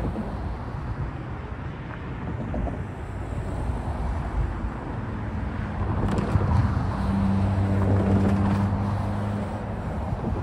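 Road traffic driving past over a railroad crossing: tyre and engine noise from passing cars, with one vehicle's engine hum growing louder through the middle and fading near the end. Wind on the microphone.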